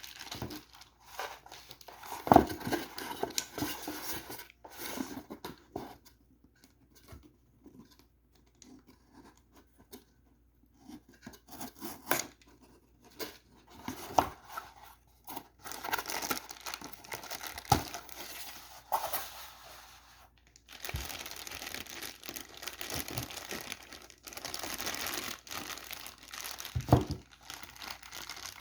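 Packaging of a boxed figure being opened and handled: plastic wrapping crinkling and tearing, with scattered light knocks. The crinkling is busiest in the second half.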